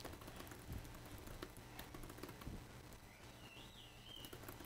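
Faint computer keyboard typing: a quick, irregular run of keystroke clicks.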